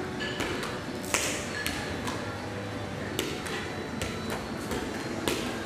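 Irregular sharp taps and knocks, about a dozen, some leaving a short metallic ring.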